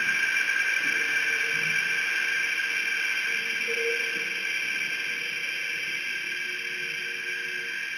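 Experimental sound-art recording: a steady, dense, hissing drone held in several high bands, with faint lower tones coming and going. It grows gradually quieter.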